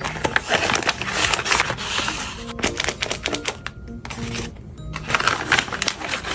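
Paper crinkling and rustling in quick crackles as a homemade paper blind bag is handled and a hand reaches inside it, over light background music.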